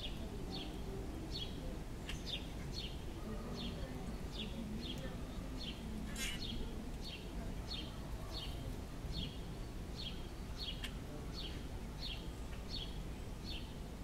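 A small songbird repeating a short, high, downslurred chirp, roughly one and a half times a second, over a low background rumble. A brief noisy rustle comes about six seconds in.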